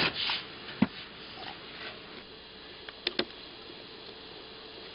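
Handling noise: a few light clicks and knocks, one about a second in and two quick ones around three seconds in, over a steady low hiss.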